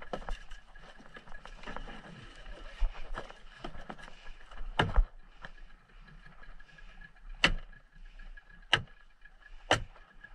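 Boat engine running steadily, with four sharp knocks in the second half.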